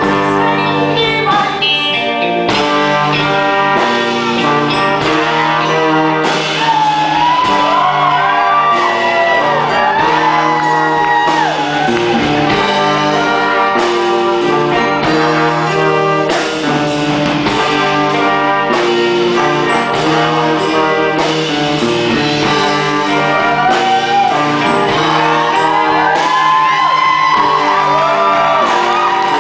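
Live band music with electric guitar and drums, played loud and steady, with voices singing and shouting over it from about eight seconds in.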